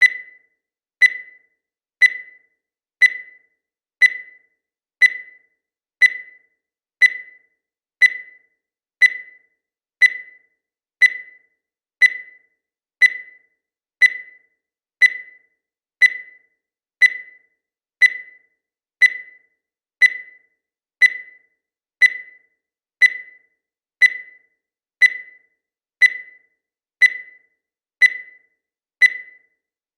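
Digital countdown timer beeping once a second, one short beep per tick. Every beep has the same pitch and fades quickly.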